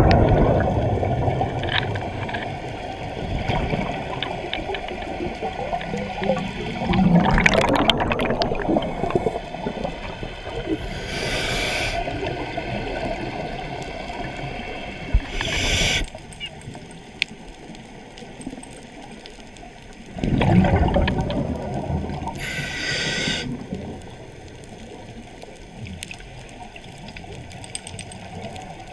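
A scuba diver breathing through a regulator underwater: three loud, bubbling exhalations (at the start, about seven seconds in and about twenty seconds in), with short hissing inhalations between them.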